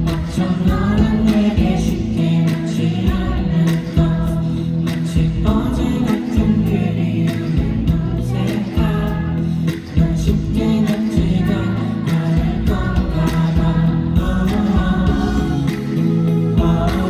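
A song with a male lead vocal, sung over backing music that has a steady beat and a strong bass line.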